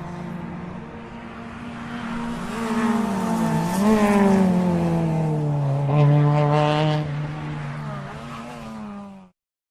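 Lamborghini sports car engine running, its note rising and falling several times as it revs, loudest about four and six seconds in. The sound cuts off abruptly near the end.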